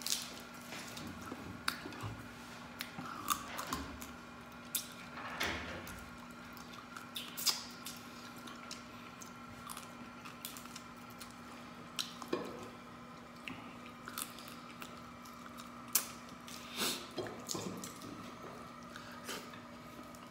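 Close-up eating sounds of a person eating mud crab in coconut sauce by hand: wet sucking and slurping at the fingers and shell, lip smacks and chewing, heard as many short irregular clicks. A faint steady hum lies underneath.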